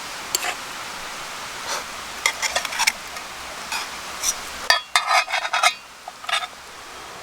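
Metal cookware and utensils clinking and knocking, with a quick run of ringing metallic clatter a little after the middle, over a steady hiss.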